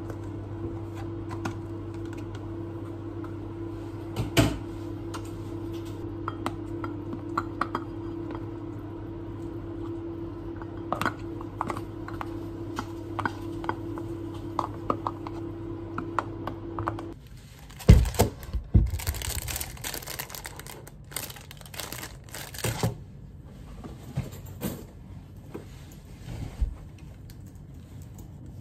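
Ceramic bowl and plastic food container clinking and scraping on a countertop, with light clicks over a steady appliance hum. About two-thirds of the way through the hum stops and a canvas tote bag is handled, giving a few loud thumps and cloth rustling.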